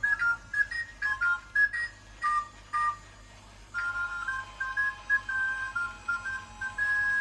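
A simple electronic melody of single beep-like notes: short, choppy notes for the first three and a half seconds or so, then a slower tune of held notes over a steady lower tone.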